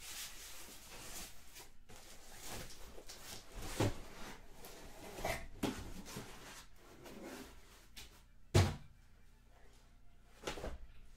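Cardboard case of trading-card hobby boxes being opened by hand: flaps rustling and bending, with several dull thumps of cardboard and boxes being handled, the loudest about eight and a half seconds in.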